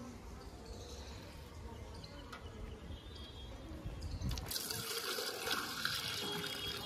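Water poured from a metal bucket in a thin stream into a small clay pot, splashing as it fills. The pour starts about four seconds in, after quieter handling of the bucket.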